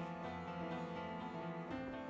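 Instrumental background music of slow, sustained notes, changing to a new chord near the end.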